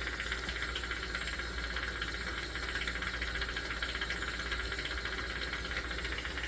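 Jeweler's gas soldering torch flame hissing steadily, over a constant low hum.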